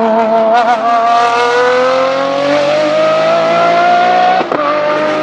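High-revving Ferrari racing engine accelerating hard, its pitch climbing steadily, with one quick upshift about four and a half seconds in before it pulls up through the revs again.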